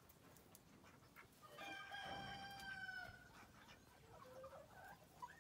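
A faint rooster crow: one long call of about a second and a half, dipping at its end, then a few softer calls.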